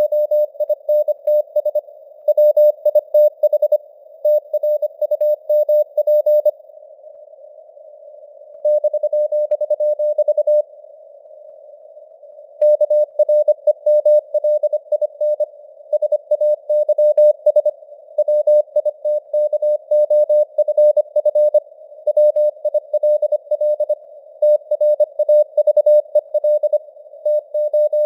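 Morse code sent at 25 words per minute as a single keyed beep tone over simulated radio static. The signal's strength fades up and down. The keying stops twice near the middle for about two seconds, leaving only the hiss.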